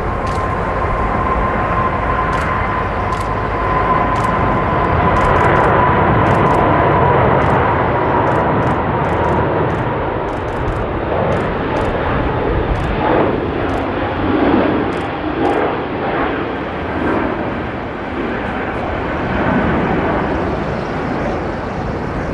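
Airbus A380 jet airliner climbing out after takeoff: steady jet engine noise with a whine that slides slowly lower over the first several seconds.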